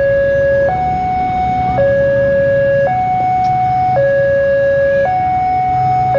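Railway level-crossing warning alarm sounding a steady two-tone hi-lo signal, switching between a low and a higher tone about once a second, warning that a train is approaching.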